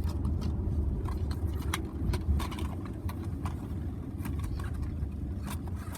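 Scattered light clicks and taps of a plastic disc case being handled as a disc is taken out, over a steady low rumble.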